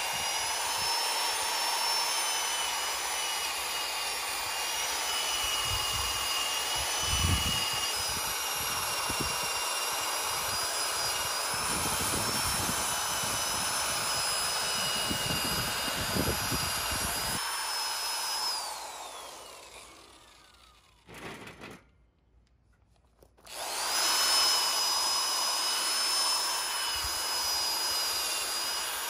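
Corded electric drill spinning a wire wheel brush against a rusty engine cylinder sleeve, a steady motor whine with the scratch of the wire stripping rust from the metal. About 18 seconds in the drill winds down to a stop, and a few seconds later it starts up again.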